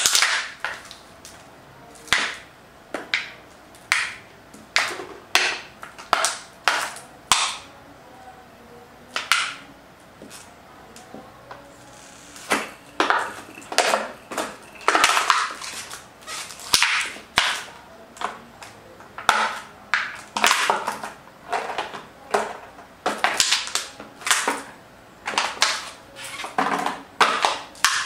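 Plastic water bottle crackling and crunching as it is stepped on and crushed under block-heeled pumps, with heels clacking on a tiled floor. A long series of sharp crackles and clacks, about one every half second to a second, with a short lull partway through.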